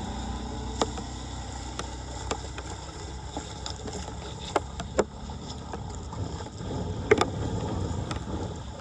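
Floodwater running into a street storm drain, a steady low rush, with several sharp knocks and clicks scattered through it.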